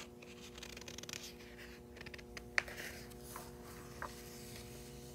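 Pages of a hardcover picture book being turned: paper rustling and sliding, with a few light taps in the middle, over a faint steady hum.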